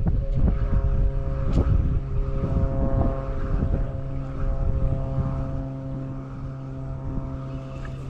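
An engine drones steadily, its note holding level while it slowly fades, with wind buffeting the microphone at the start.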